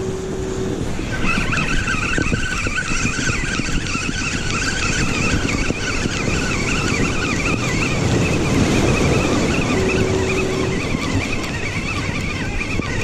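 Spinning fishing reel being cranked steadily, its gears giving a wavering whine that starts about a second in, over surf and wind on the microphone.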